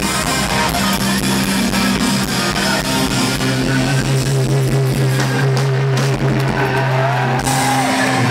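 Live rock band: two distorted electric guitars with drums and bass, playing loudly. A long low note is held through the middle, and near the end guitar notes bend up and down over a run of drum hits.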